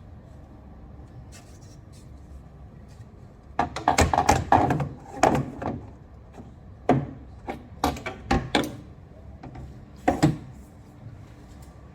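Irregular wooden-sounding knocks, rattles and rubbing on a window mosquito-screen frame. They come in a dense burst about four seconds in, then as scattered single knocks.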